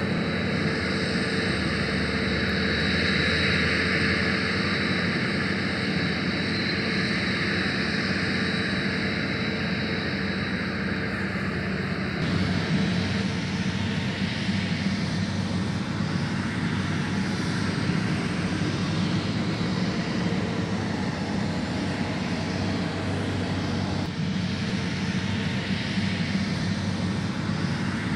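Claas Lexion 570 TerraTrac combine harvester running steadily while harvesting rice, a constant engine and threshing drone. A high whine over it cuts off about twelve seconds in.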